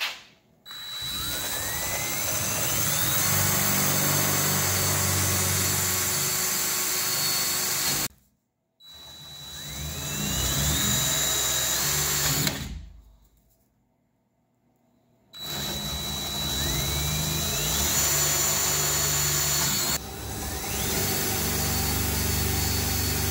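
Power drill boring the rack's mounting holes through the Jeep's roof to final size, in four runs. Each run starts with a rising whine as the drill spins up, then holds a steady whir. The first run cuts off suddenly about eight seconds in.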